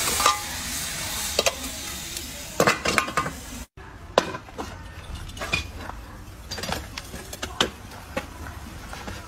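A gas-fired crucible furnace hissing at first, then iron tongs clinking and knocking against the crucible and furnace lid in a series of sharp metallic clicks, with a sudden break in the sound about four seconds in.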